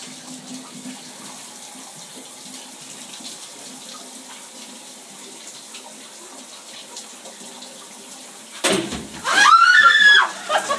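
Shower running steadily; about eight and a half seconds in, a bucket of ice-cold water is tipped over the curtain with a sudden splash, and the person under the hot shower lets out a loud, high shriek.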